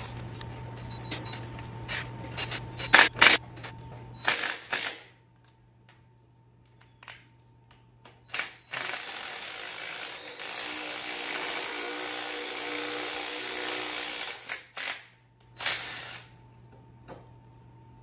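Cordless drill running steadily for about six seconds, about halfway in, turning the forcing screw of a puller that draws the hub off an LT1 engine's crankshaft. Sharp metal clicks and clanks of the tool and puller come before and after it.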